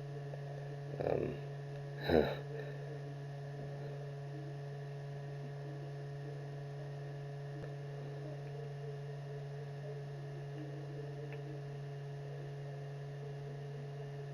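A steady low electrical hum with a few fainter steady tones above it. Two short louder sounds come about one and two seconds in.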